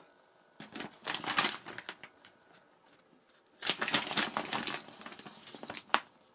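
Pages of a paper instruction manual being turned and handled, rustling in two bursts, with a short sharp crackle of paper near the end.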